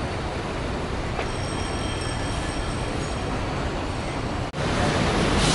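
Steady city traffic noise on wet streets: a hiss of tyres and engines on a wide avenue. About four and a half seconds in it drops out for a moment and comes back louder.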